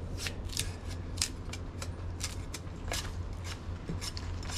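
Machete blade shaving and chopping along a hand-held sugarcane stalk: a run of short, sharp cuts, about three a second, at an uneven pace.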